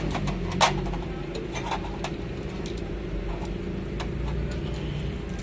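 Sharp metallic clicks and knocks of hand tools and engine parts being handled, the loudest about half a second in and a few more over the next seconds, over a steady low mechanical hum.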